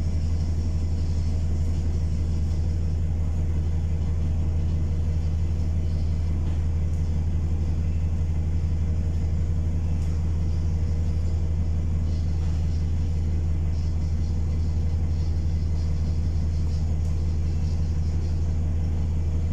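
Single-deck bus engine idling with a steady low drone, heard from inside the passenger saloon while the bus stands still.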